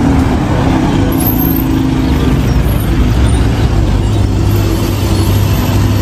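Bus engine running: a loud, steady drone with a hiss over it.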